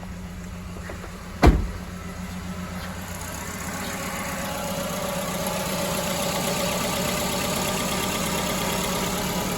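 Car engine idling roughly with a dead miss on one cylinder, whose fuel injector has been unplugged, so the engine shakes hard. One loud thump comes about a second and a half in, and the engine grows louder from about three seconds in.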